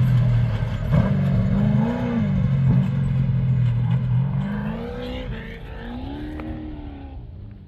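Off-road race truck engine revving, its pitch swinging up and down with throttle, then fading away as the truck moves off.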